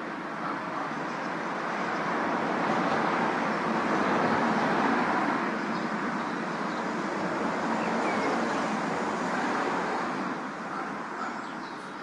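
Outdoor city ambience from a high-rise rooftop: a steady rushing noise of traffic below and wind. It swells twice and eases off near the end.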